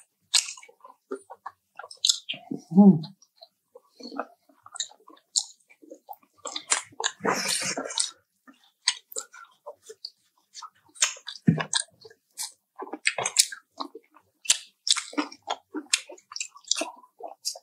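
Close-up eating of fried chicken: biting and chewing with many short wet mouth clicks, a brief low murmur about three seconds in, and a louder, noisier stretch of about a second around seven seconds in.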